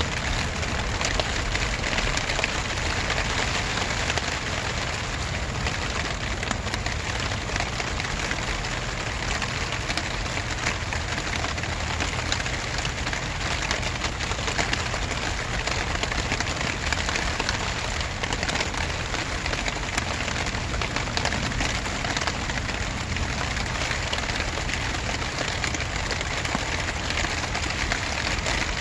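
Steady rain falling, a dense patter of drops that keeps an even level throughout.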